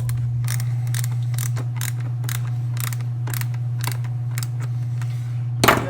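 Irregular mechanical clicks, about two or three a second, from hand tools at work on a roller bag's wheel assembly during reassembly, with one louder clack near the end. A steady low hum runs underneath.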